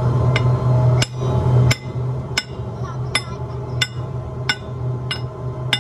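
Hand hammer striking a steel rod at a furnace mouth: nine even blows, about one every 0.7 s, each with a short metallic ring. Under them runs a low steady hum that drops away about a second and a half in.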